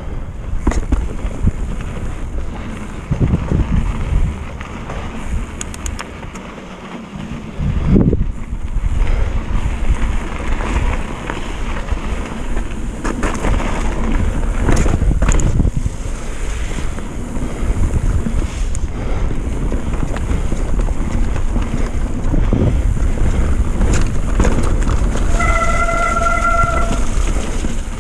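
Wind buffeting a handlebar-mounted action camera's microphone as a mountain bike rolls over grass and then a dirt trail, with knocks and rattles from the bike over bumps. A brief pitched squeal sounds near the end.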